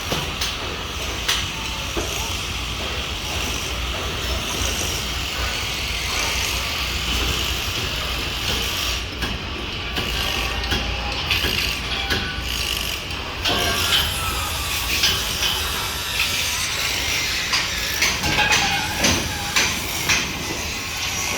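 Construction site noise: a steady low rumble and hiss with scattered sharp metal knocks and clinks, which come faster, about two a second, near the end.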